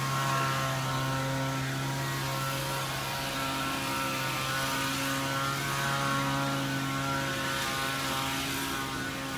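Steady mechanical hum: a low drone with several steady higher tones stacked above it, holding an even level throughout.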